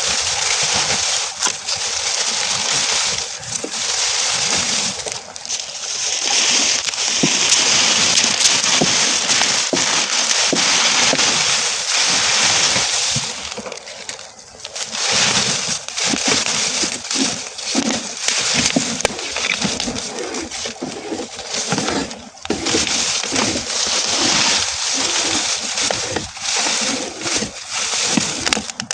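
Burning straw crackling and hissing: a dense rush of fine crackles that is fullest in the first half, then thins into more separate pops and snaps with brief lulls.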